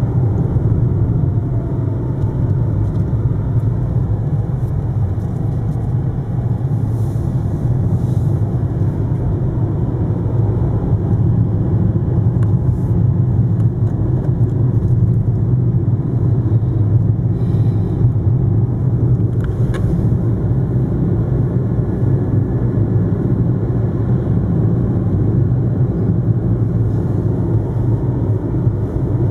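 Car driving at steady speed, heard from inside the cabin: a constant low rumble of engine and tyre noise, with a couple of faint ticks about two-thirds of the way through.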